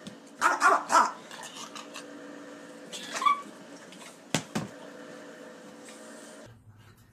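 French bulldog barking in short bursts: a quick run of loud barks about half a second in, another bark around three seconds, and a sharp one around four and a half seconds.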